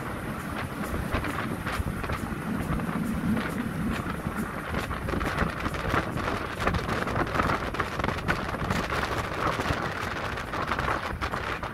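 Steam train running by on the line: a steady rush of noise with many irregular clicks and knocks.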